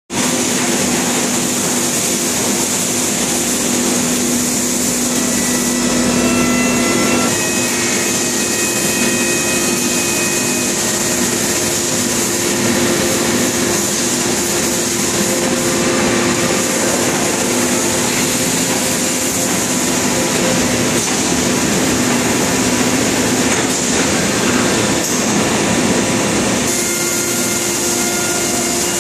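Steady din of an automatic short-cycle melamine laminating hot press line running, a constant machine hum with a few held tones over an even mechanical noise.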